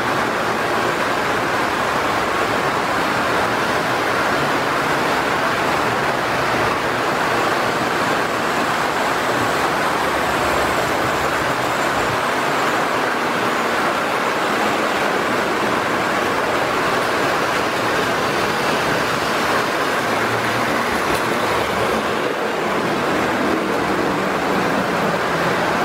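Lionel electric toy trains running on three-rail tubular metal track, a steady whir of wheels and motors as the cars pass close by.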